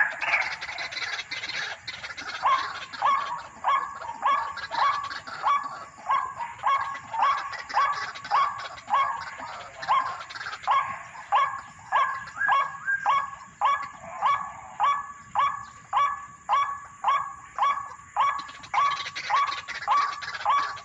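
White-breasted waterhen (ruak-ruak) calling: a long, even run of short harsh notes, about two a second, after a brief jumbled start.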